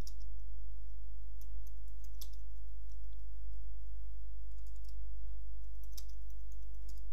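Computer keyboard keys tapped in scattered, irregular clicks as a short name is typed, over a steady low hum.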